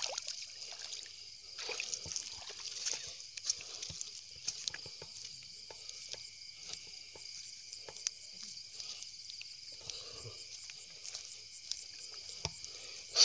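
Shallow lake water sloshing and dripping in small, scattered splashes as golden apple snails are picked out by hand, over a steady high-pitched chorus of night insects. A single sharp tap comes right at the end.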